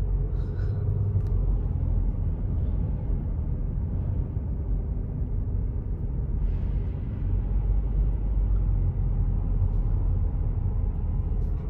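Steady low road rumble of a car heard from inside the cabin while driving, with a brief rise in tyre hiss about halfway through as the tyres cross wet road.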